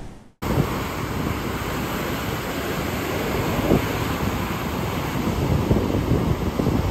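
Ocean surf washing against a rocky shoreline: a steady, loud rush of waves that starts abruptly about half a second in.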